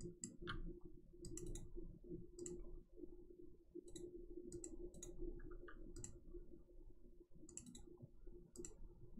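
Faint, irregularly spaced clicks of a computer mouse, about a dozen, over a faint steady hum.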